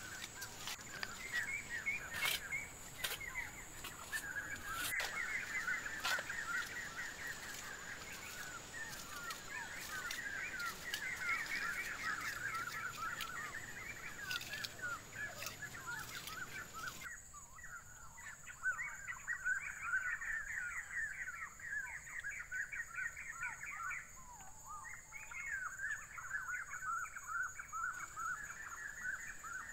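Dense, continuous chirping of many small birds, with a steady high insect whine above it. Over the first half, scattered sharp taps and clicks, like a trowel working wet mud plaster; about halfway the background hiss cuts out suddenly while the chirping goes on.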